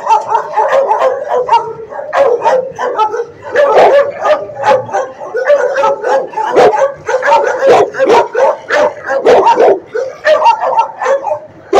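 Dogs barking and yipping in shelter kennels, several barks a second overlapping without a break.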